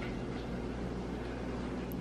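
Steady low background hum with faint room noise. The soft chocolate cream falling from the spatula makes no clear sound of its own, apart from a tiny tick near the end.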